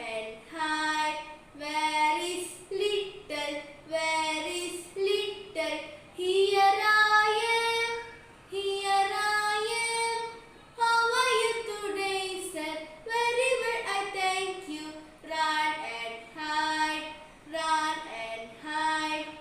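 A girl singing a song solo and unaccompanied, in phrases with some long held notes and short breaths between them.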